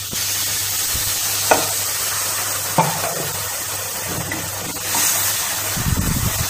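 Water poured into a hot kadhai of ghee-roasted semolina and sugar, sizzling with a steady hiss. Two sharp clicks come in the first few seconds, and near the end a wooden spatula stirs the wet semolina with a low scraping rumble.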